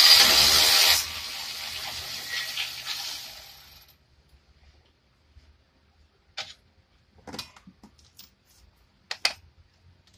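A loud burst of hissing and whirring lasting about a second, trailing off over the next three seconds, from tool work on a car's front brake caliper bracket bolts. Then a few scattered light metallic clicks as the parts are handled.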